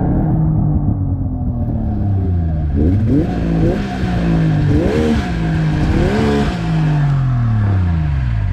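Snowmobile engine revving up and down about three times while riding through deep snow, with a hiss of snow over the engine. Near the end the revs fall steadily as the sled slows.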